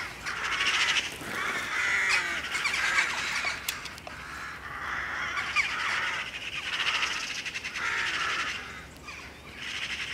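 Eurasian magpies chattering: a run of harsh, rattling bursts of calls, one every second or two.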